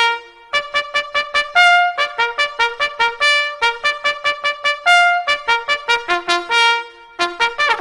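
Trumpet playing a fanfare of rapid repeated notes, broken by a longer, higher held note about one and a half seconds in and again about five seconds in.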